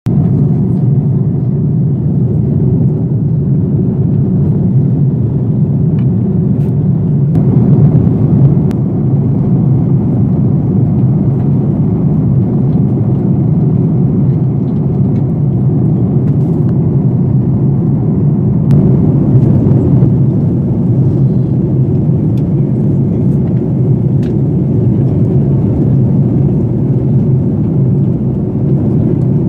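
Steady in-flight cabin noise of an Airbus A330-300 airliner: a loud, even low drone of its Rolls-Royce Trent 700 engines and the airflow over the fuselage, heard from inside the cabin.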